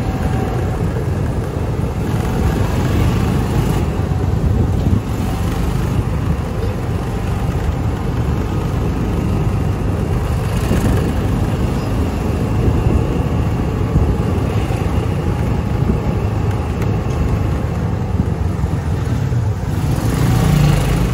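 Steady low rumble of a vehicle in motion, with no distinct events.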